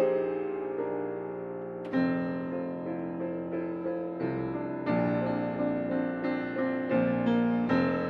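Solo piano playing an accompaniment: sustained chords, with new notes and chords struck about once a second and a fuller chord about two seconds in.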